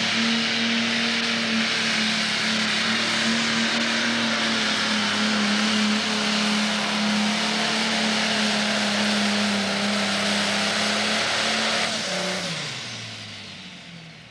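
Turbocharged diesel engine of an International pro stock pulling tractor running flat out under the load of the weight sled, one loud steady note with a hiss over it. About twelve seconds in the pitch falls and the sound dies away as the engine is brought down at the end of the pull.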